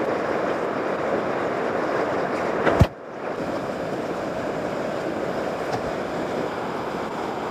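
Rushing whitewater of a river standing wave, a steady loud rush. Near three seconds in there is a sharp click and the rush drops away briefly, then resumes a little quieter.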